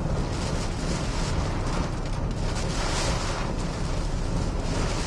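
Hurricane-force wind and driving rain buffeting a vehicle, heard from inside: a steady rushing noise over a deep rumble, swelling in gusts.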